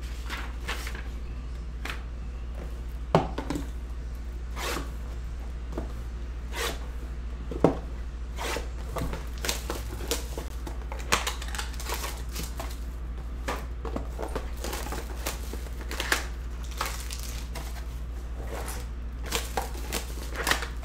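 Plastic wrap crinkling and tearing as a sealed 2013 Panini Prominence football card box is opened and its cellophane-wrapped pack of cards handled, with a couple of sharp knocks from the box about three and eight seconds in.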